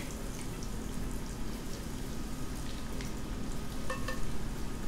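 Cornstarch-coated chicken pieces frying in hot cooking oil in a stainless steel pan: a steady sizzle with fine crackling as the batch goes into the oil.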